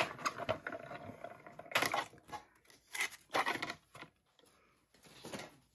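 Plates and a cutting die with cardstock being run through a small die-cutting machine: four short bursts of mechanical noise as the plates pass through the rollers and are handled.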